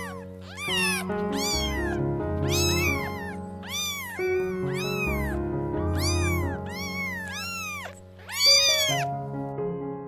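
A domestic cat meowing over and over, about a dozen meows that each rise and fall in pitch, the loudest one near the end, over soft background music.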